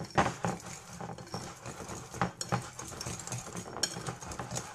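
Metal balloon whisk beating thick, sticky pancake batter in a glass bowl, the wires clicking and scraping against the glass in quick, uneven strokes, about two or three a second.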